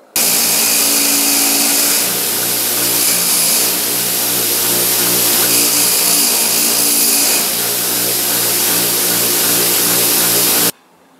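Bench buffer motor running a brass wire wheel at speed while a brass compressor check-valve fitting is held to it, the wires scraping over the metal. A steady motor hum sits under a bright, loud hiss that rises and falls as the part is pressed on and turned. It starts abruptly and cuts off sharply near the end.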